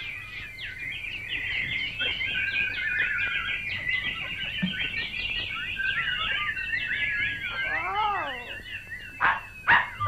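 Cartoon birds chirping and twittering all at once, a dense flurry of short high tweets that goes on and on. Near the end a lower call rises and falls a few times, followed by two loud sharp hits.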